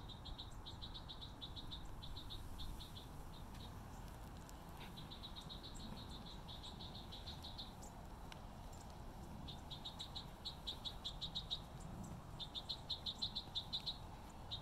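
A rapid, high chirping trill of about nine pulses a second, repeated in bouts that last from under a second to nearly three seconds, over a low rumble.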